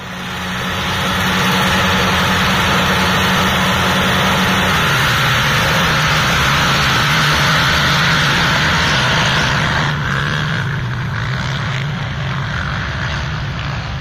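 A pack of racing ATV quad engines running hard together as the field pulls away from the start. The engine pitch drops a step about five seconds in, and the sound eases somewhat about ten seconds in.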